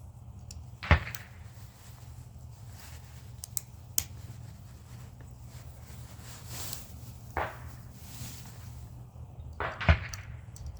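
Small metal scrap parts being handled and sorted: several sharp knocks and clicks, the loudest about a second in and near the end, over a steady low hum.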